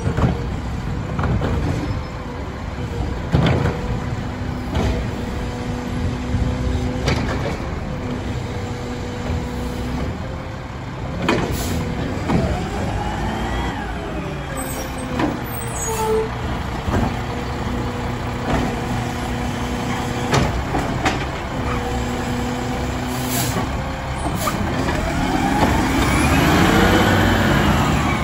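Mack LR side-loader garbage truck's diesel engine running as the truck creeps along and stops, with short air-brake hisses and clunks. Near the end the engine sound grows louder and rises and falls in pitch as the truck comes alongside.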